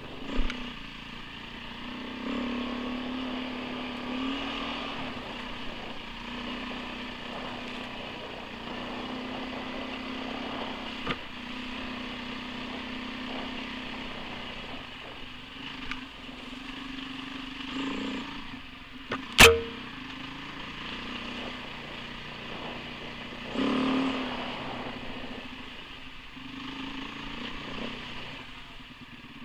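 Off-road motorcycle engine running steadily at a low, even pace along a dirt trail. A single sharp knock, the loudest sound, comes about two-thirds of the way through, and the engine briefly gets louder a few seconds later.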